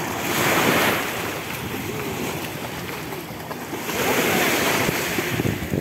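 Small sea waves washing onto a pebble shore, surging twice, at the start and again about four seconds in, with wind buffeting the microphone.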